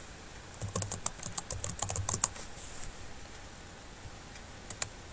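Typing on a computer keyboard: a quick run of key clicks for about two seconds, then two more clicks near the end.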